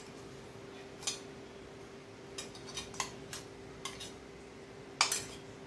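A metal spoon scraping and tapping against the inside of a small stainless-steel mixer-grinder jar, a string of sharp metallic clicks with the loudest cluster about five seconds in.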